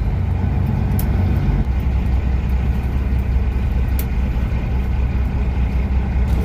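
Kenworth W900 semi truck's diesel engine running with a steady low rumble as the truck drives slowly, heard from inside the cab. Two brief clicks, about a second in and about four seconds in.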